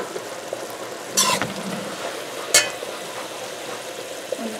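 Metal slotted spoon stirring a pot of simmering catahar (breadnut) curry: steady bubbling and sizzling, with two sharp knocks of the spoon against the metal pot, about a second in and again near the middle.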